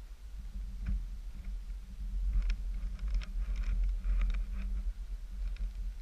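A steady low rumble, with a cluster of light clicks and rustles from about two to four and a half seconds in.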